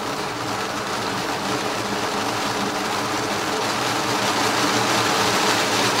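NEMA 17 stepper motor driving a train of meshing 3D-printed gears on skateboard bearings, a steady mechanical running whir that grows gradually louder as the speed is turned up, toward about 700 RPM.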